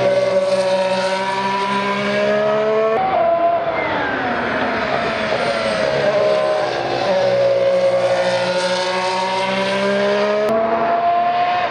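A Sauber C34 Formula 1 car's Ferrari 059/4 1.6-litre V6 turbo engine running on track at high revs. Its note falls and climbs again as the car slows and accelerates, with two sudden jumps, about three seconds in and near the end.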